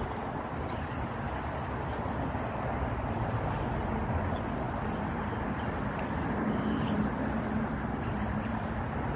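Steady outdoor rumble of road traffic with wind on the phone microphone. A low engine hum grows a little louder in the second half.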